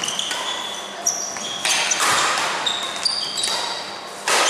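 Badminton doubles rally on an indoor court: players' shoes squeak in short high-pitched chirps on the floor, with sharp racket hits on the shuttlecock. A loud, sudden hit comes near the end.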